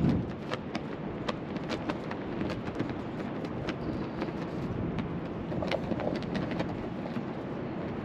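Wind buffeting the microphone: a steady rush of wind noise with many faint, scattered clicks.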